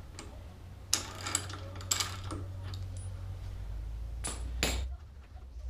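Hand tools clinking and clanking on metal in a handful of sharp knocks, a cluster about a second in, two more near two seconds and two louder ones near the end, over a steady low hum.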